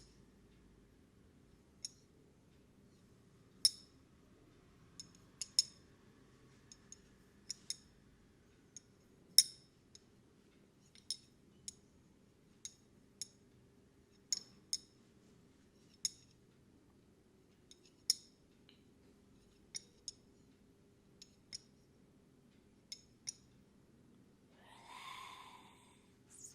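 A series of sharp, irregular clicks or snips, roughly one a second, some louder than others. Near the end comes a brief softer rushing sound.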